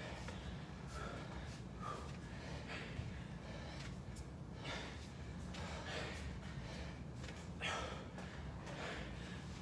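Men breathing hard under exertion, with short, sharp exhalations and gasps recurring irregularly about once a second, over a steady low room hum.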